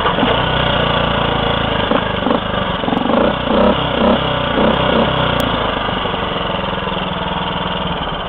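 Honda C100 Cub's small single-cylinder four-stroke engine running on the road through an upswept muffler. Its note wavers unevenly around the middle, then settles into a steadier, lower note that fades slightly near the end.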